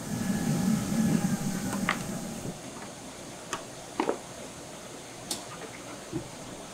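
Diagonal cutters snipping plastic moulding stubs off a white helmet shell: a few sharp clicks, the loudest about two and four seconds in. A low rumble in the first couple of seconds as the shell is handled on its stand.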